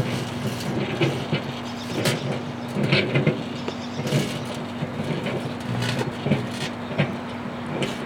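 Microwave oven running with a steady hum while a steel scrubbing pad inside arcs, with irregular crackling and snapping as the sparks jump across the wires.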